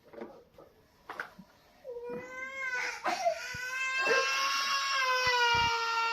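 A young child crying in one long drawn-out wail that starts about two seconds in, breaks briefly, then is held at a steady pitch. A few faint knocks come before it.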